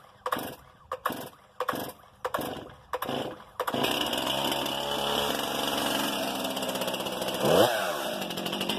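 Stihl MS 261 C-M VW two-stroke chainsaw being pull-started: quick cranking strokes from the starter cord, about three a second, until the engine catches a little over three and a half seconds in. It then runs steadily, with one brief rev up and back down near the end.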